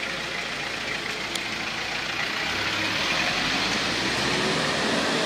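A motor vehicle's engine running, growing louder from about halfway through.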